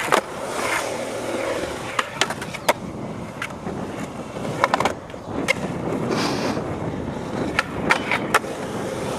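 Skateboard rolling on pavement, its wheels making a steady rumble, broken by a series of sharp clacks and knocks from the board and trucks hitting the ground and obstacles.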